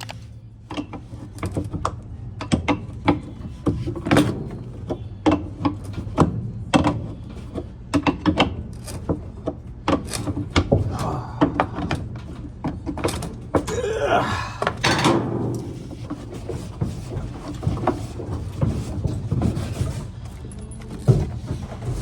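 Repeated knocks, clicks and clanks of parts and tools being handled during reassembly of a top-load washer's gear-case drive, with a longer scraping sound about fourteen seconds in and a steady low hum underneath.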